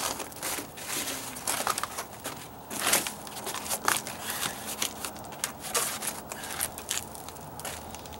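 Stiff cardboard sheets handled and shifted, giving irregular crinkling, crackling and scraping, with a few sharper scrapes about three and four seconds in.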